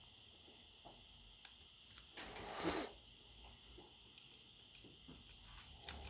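A short, noisy breath lasting under a second, about two seconds in, over faint scattered clicks of tweezers and a screwdriver on the tablet's frame and circuit board.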